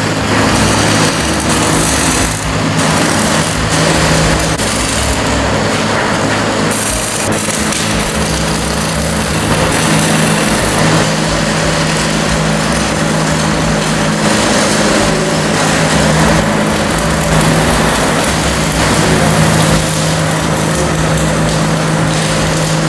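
Continuous metal-fabrication shop noise: a steady low machine drone with a hiss over it.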